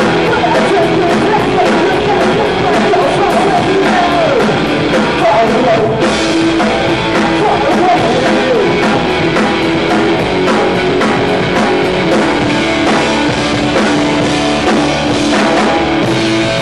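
Live punk rock band playing: distorted electric guitars and a steady drum-kit beat, with a male lead vocal sung over them.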